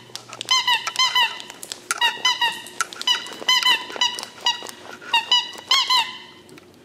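Squeaky green toy bone squeezed over and over, giving short high squeaks in quick runs of two to four, which stop about six seconds in.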